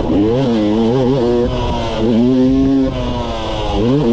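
Yamaha YZ250 two-stroke dirt bike engine under hard riding, revving up and down with the throttle. The pitch rises and falls several times and climbs sharply near the end.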